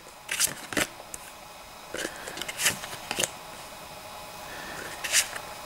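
Cardboard game cards being slid and laid down one after another on a cardboard game board: a handful of short scrapes and taps.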